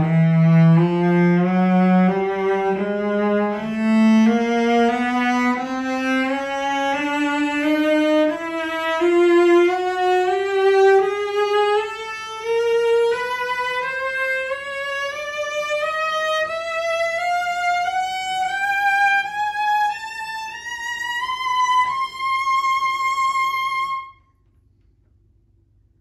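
A 1931 John Juzek 'Master Art' cello, strung with Kaplan strings, bowed in a slow ascending scale that climbs nearly three octaves one note at a time. The top note is held briefly and stops sharply about 24 seconds in.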